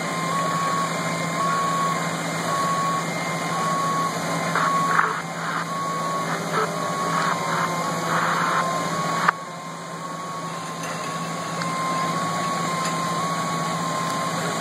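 Fire apparatus running steadily at a fire scene, under a repeating electronic beep like a vehicle back-up alarm. A sharp click comes about nine seconds in, and the sound drops a little after it.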